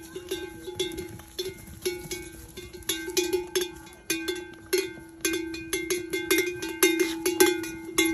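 Bells worn by a flock of walking sheep, clanking in an irregular jangle of several strikes a second, each strike ringing on at the same pitch.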